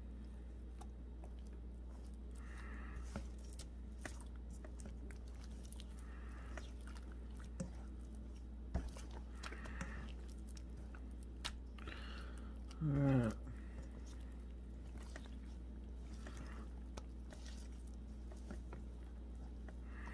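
Hands kneading raw chicken pieces in egg, flour and marinade in a stainless steel bowl: soft wet squelches every few seconds, with small clicks, over a low steady hum. About two-thirds of the way through comes one brief, louder sound that falls in pitch.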